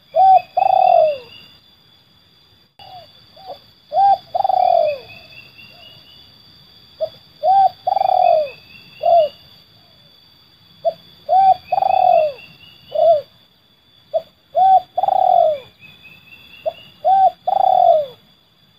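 Spotted dove (terkukur) cooing in the call style bird-keepers call 'seladang gantung': repeated phrases of a short coo or two and a longer coo that falls in pitch, about every three to four seconds.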